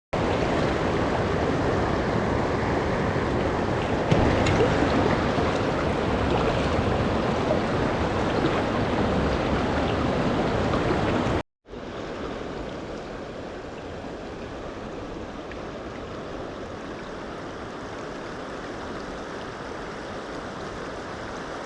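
River water rushing over a shallow riffle, a steady even rush. It cuts out for a moment about eleven seconds in and comes back quieter.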